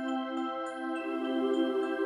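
Background music in a calm new-age style: sustained pad tones under a light chiming pattern, with more layers joining about a second in.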